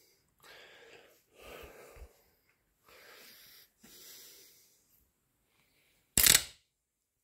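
David Brown 25D tractor's starter motor being bench-tested, giving a few short hissing whirs in fits and starts from a bad contact at its connection, then one louder, sharp burst about six seconds in.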